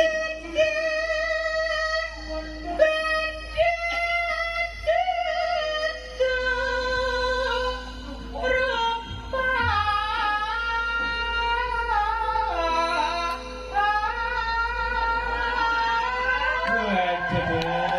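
A high voice singing a slow, melismatic Javanese sinden-style vocal line, holding long wavering notes and gliding between pitches, over soft sustained accompanying notes.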